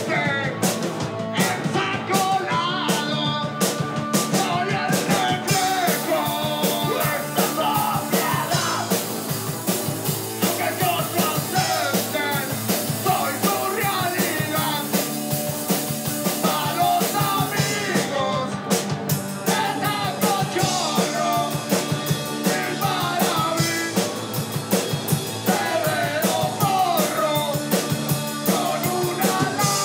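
Punk rock band playing: electric guitar, drum kit with constant cymbal strokes, and a lead vocal. The cymbals drop out for a moment about two-thirds of the way through.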